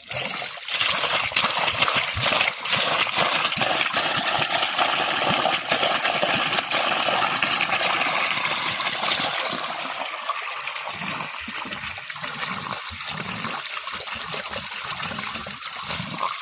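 Water splashing and rushing in a dense, steady noise that starts abruptly just after the beginning and eases somewhat after about nine seconds.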